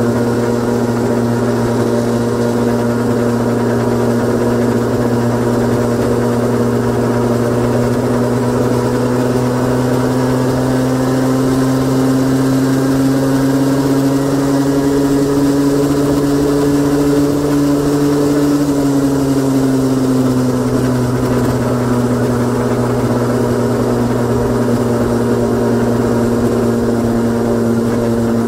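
Honda Gyro X (TD01) 49 cc two-stroke three-wheel scooter engine idling with a deep, low note. The idle speed creeps up slowly, then drops back about two-thirds of the way through.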